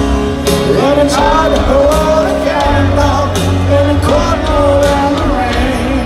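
A rock band playing a slow ballad live, with a singer's vocal line coming in about a second in over piano and band, heard through a stadium PA from among the crowd.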